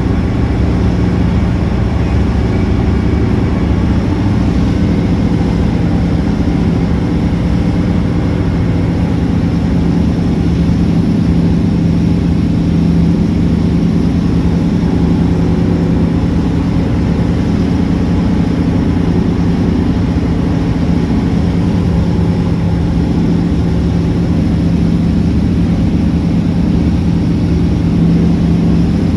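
A steady engine drone at a constant pitch, with no revving or change throughout.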